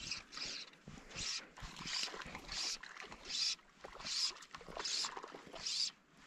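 Fly line being stripped in by hand through the rod guides in quick, even pulls. Each pull gives a short sharp hiss, about nine of them, one every three-quarters of a second or so.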